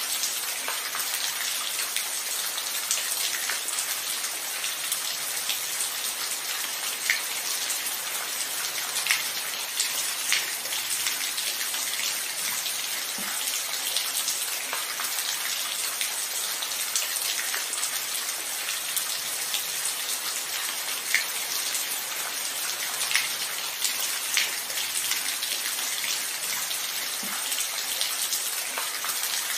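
Steady rain falling, a constant even hiss with individual drops ticking sharply now and then.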